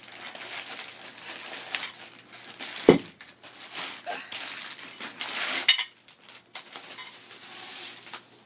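Handling noise from unboxing an aluminium scooter deck: continuous rustling of packaging with light metallic clinks, a sharp knock about three seconds in and another near six seconds, then quieter handling.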